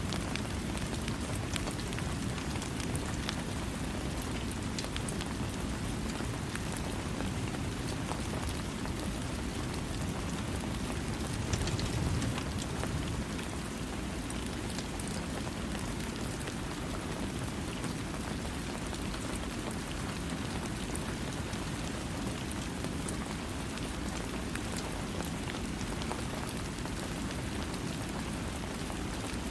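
Steady rain falling, a dense even patter of drops with a deep, full hiss, swelling a little louder for a moment about twelve seconds in.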